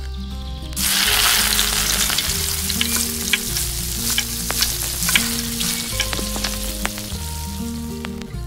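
Small pieces deep-frying in hot oil in a miniature steel kadai: a loud sizzle starts about a second in as they go into the oil, full of crackling pops, while they are stirred with a tiny slotted spoon. The sizzle eases off toward the end.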